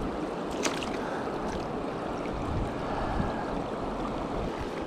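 Mountain stream water rushing steadily over rocks, with a brief click about half a second in.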